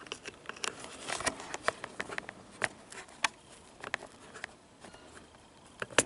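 Irregular small clicks and taps of a small screwdriver pressing into the push-in terminals of a circuit board and wires being pulled free, with a sharper click near the end.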